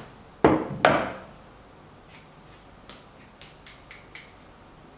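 Two sharp knocks from a ceramic mixing bowl and chopsticks as sticky dough is scraped out of the bowl onto a wooden board. About three seconds in comes a quick run of about six light clicks as the chopsticks are rubbed against each other.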